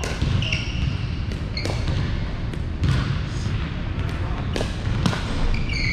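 Pickleball rally: paddles knocking a plastic ball and the ball bouncing on a hardwood court, several sharp knocks at irregular intervals, with short high sneaker squeaks on the floor. A steady low hum of the large hall runs underneath.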